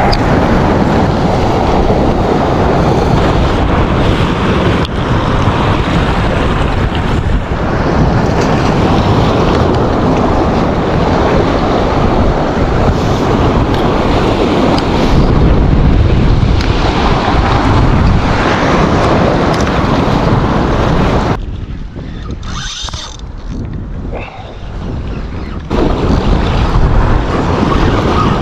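Strong wind buffeting the microphone, mixed with waves washing against the jetty's rocks. The wind drops away for about four seconds near the end, then picks up again.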